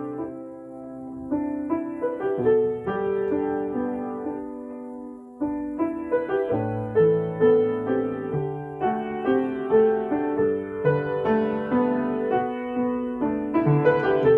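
Solo piano playing a slow, gentle new-age piece with sustained notes and chords. It thins to a soft passage, then comes back fuller about five and a half seconds in.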